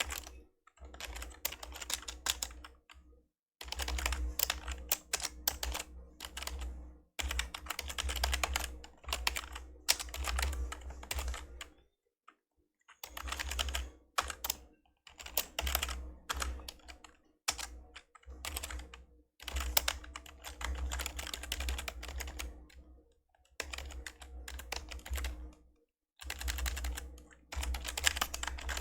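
Typing on an old membrane computer keyboard: bursts of rapid keystrokes broken by short pauses, with the longest pause about twelve seconds in.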